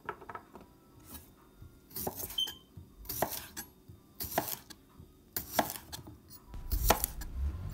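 A series of sharp clacks or knocks, roughly one a second, with a brief high squeak about two and a half seconds in and a low rumble building near the end.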